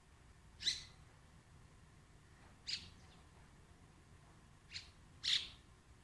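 Common mynas calling: four short, sharp calls, about a second in, near the middle, and two close together near the end.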